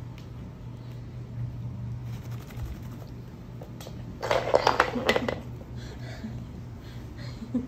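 Loud scuffling and rustling close to the microphone for about a second, about four seconds in, as the puppy's fur brushes against the phone, over a steady low hum.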